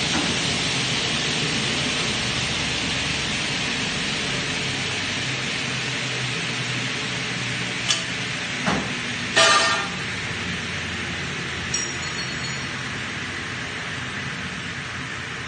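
Steady rushing mechanical noise that slowly fades, broken by a couple of short clicks and, about nine and a half seconds in, a brief loud ringing clank.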